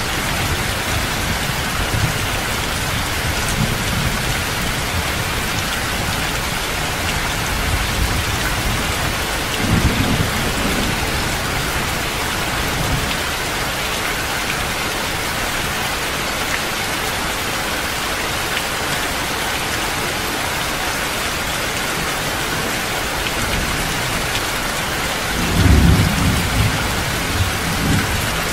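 Heavy rain falling steadily, with low rolls of thunder about a third of the way in and a louder one near the end.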